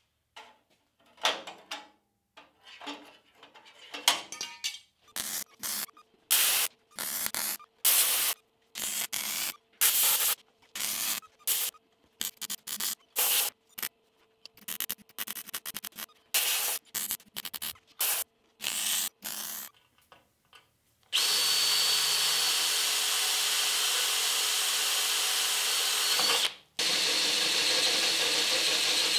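A MIG welder laying a steel patch onto a rusty chassis rail in a string of short bursts, each a second or less with brief gaps between. About three-quarters of the way in an angle grinder takes over, running steadily with a high whine as it grinds the welds flush, and cuts out briefly once.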